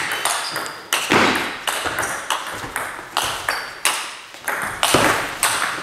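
Table tennis rally: the celluloid ball clicking sharply off rubber-covered bats and the table in a quick back-and-forth, about two hits a second, echoing in the hall.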